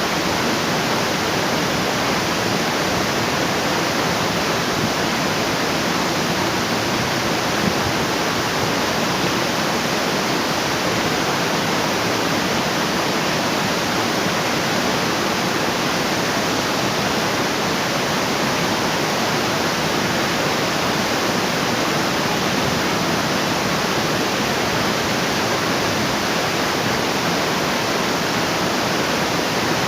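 Waterfall: water falling and rushing in a loud, steady, unbroken wash of noise.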